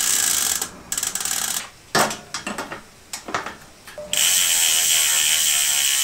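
Bicycle rear hub freehub ratchet buzzing: two short spins, a few clicks and knocks of the cassette being handled, then a longer steady buzz from about four seconds in as the fat bike's rear wheel coasts in the frame.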